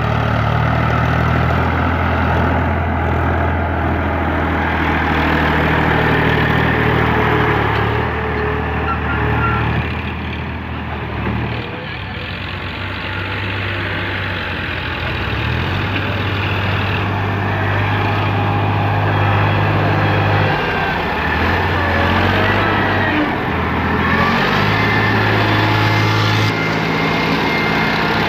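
Eicher tractor's diesel engine running under load as it hauls a trailer heaped with soil over dirt. Its low note drops and rises several times, with a quieter spell about ten seconds in.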